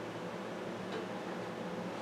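Steady rain falling, an even hiss that does not rise or fall, with one faint tick about a second in.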